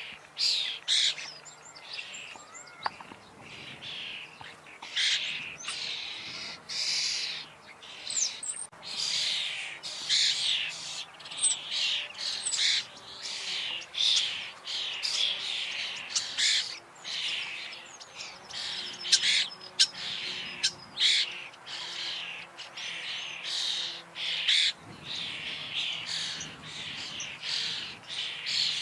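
Common starlings calling: a dense, unbroken run of short high-pitched chirps, whistles and harsh squawks, several a second.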